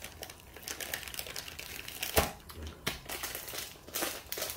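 Plastic instant-noodle packet crinkling as it is picked up and handled, a quick run of crackles with one sharper snap about two seconds in.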